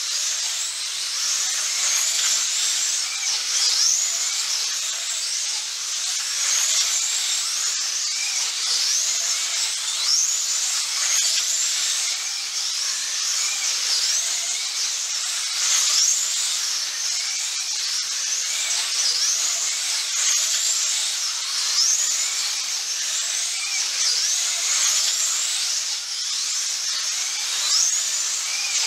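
1/24 scale GTP slot cars racing, their small electric motors whining high over a steady hiss. The pitch rises and falls again and again as the cars speed up on the straights and drop off into the turns.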